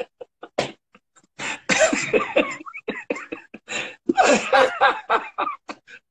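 Two men laughing hard in choppy, gasping bursts that break into coughs, with two long fits of laughter.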